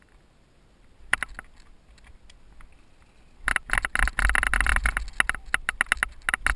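Cyclocross bike rattling and clattering over rough, rocky singletrack, heard through the handlebar-mounted camera: a few light knocks at first, then a dense, loud run of jolts and rattles from about three and a half seconds in as the tyres hit the rock section, over a low wind rumble.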